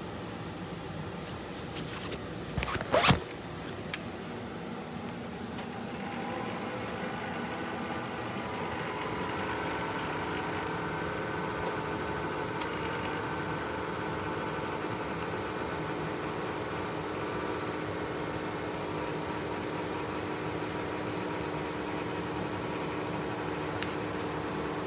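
Portable electric clothes dryer's fan and heater running with a steady hum. There is one knock about three seconds in, and a string of short high beeps in the second half.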